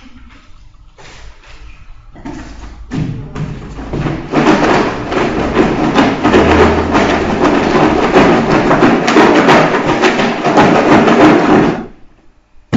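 Folded paper lots being shaken hard inside a closed draw box: a loud, dense rattling that builds over the first few seconds and stops abruptly near the end.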